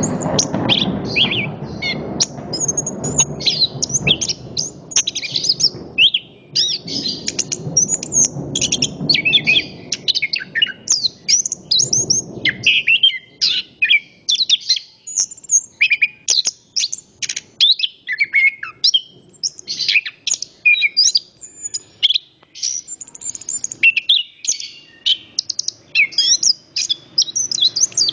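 Chestnut-capped thrush (anis kembang) singing without pause, a dense stream of quick, varied high chirps and whistled phrases. A low background noise lies under the song for the first half and stops about halfway through.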